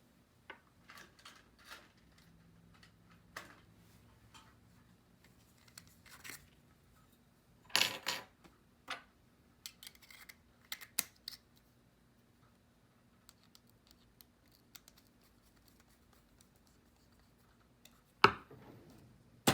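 Scattered clicks, taps and light clatter of small tools and parts being handled on a workbench, louder about eight seconds in and again near the end, over a faint steady hum.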